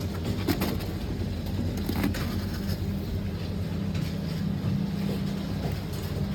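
Factory machinery running with a steady low hum, with a few sharp clinks and knocks over it.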